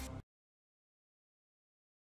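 The last tail of intro music dies away a fraction of a second in, then complete digital silence.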